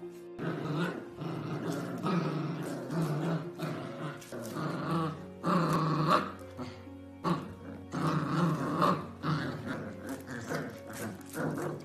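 Pit bull puppies growling in play while tugging on a fabric toy, in short irregular bursts.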